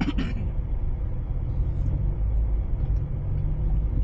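A car's engine and road noise inside the cabin as it drives along: a steady low rumble.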